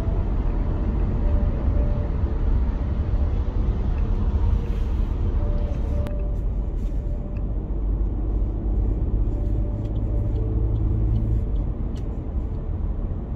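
Road noise inside a moving car's cabin: a steady low rumble of engine and tyres.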